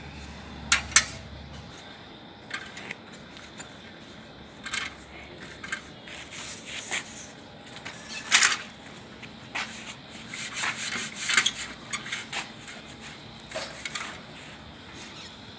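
Metal tools and bicycle parts clinking, clicking and scraping against each other in irregular sharp strikes during bicycle repair work, with a brief louder double clink about a second in.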